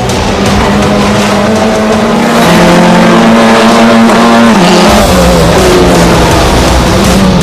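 Pack of race cars running at full throttle, their engine notes rising and holding, then stepping down together about four and a half seconds in as the drivers downshift.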